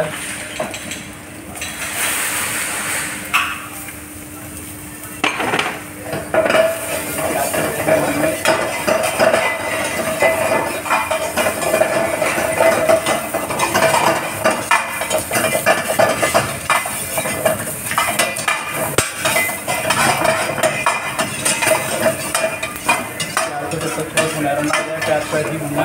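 Chopped onion and cumin sizzling in hot oil in a stainless steel frying pan while a metal ladle stirs and scrapes the pan. From about six seconds in, the ladle's clinking and scraping becomes louder and constant over the sizzle.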